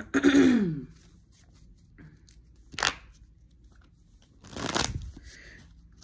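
A short voice sound that falls in pitch at the start, then tarot cards being shuffled in two brief rustling bursts, about three and five seconds in.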